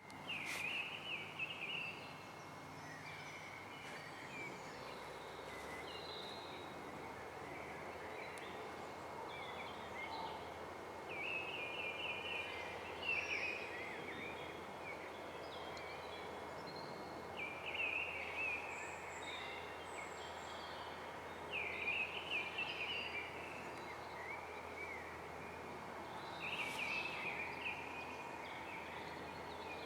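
Birds singing outdoors, short bursts of chirping phrases every few seconds over a steady background hiss of ambient noise.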